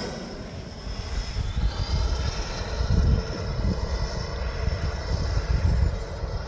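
Distant whine of the twin Schübeler DS-82 electric ducted fans of a large RC F-4 Phantom model, falling away over the first second as the jet recedes, then faint and steady. A low, uneven rumble runs underneath.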